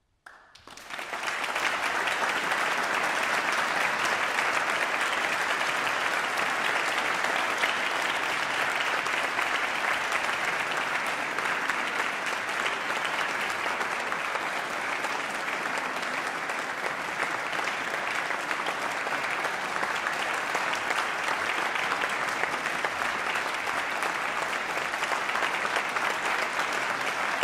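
Audience applauding: the clapping breaks out out of silence, builds within about a second, then holds steady.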